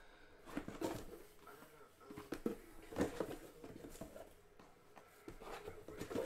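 Cardboard card boxes being pulled out of a cardboard shipping case and set down: scraping and rustling of cardboard on cardboard, with louder knocks about one, three and six seconds in.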